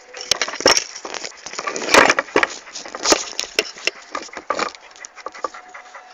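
A clatter of irregular sharp knocks and clicks with short rushes of noise, loudest about two seconds in.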